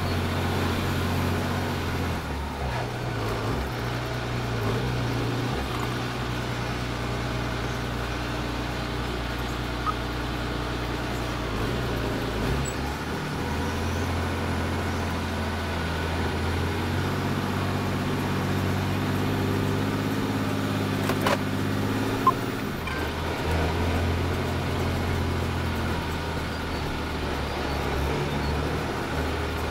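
Semi truck's diesel engine running steadily at low speed, heard from inside the cab, its pitch shifting a few times as the speed changes. A sharp click is heard about two-thirds of the way through.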